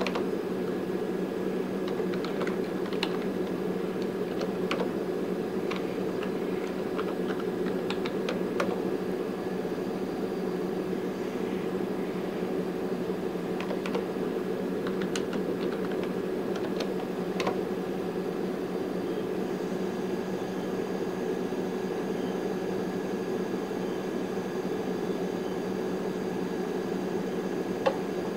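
Keys typed on a computer keyboard in two short runs of clicks, over the steady hum of the running AlphaServer 1000's fans.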